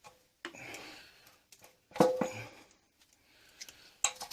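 Metal clunks and scrapes of a motorcycle fuel tank being worked loose and lifted off the frame, with a sharp knock about two seconds in that rings briefly, and more knocks near the end.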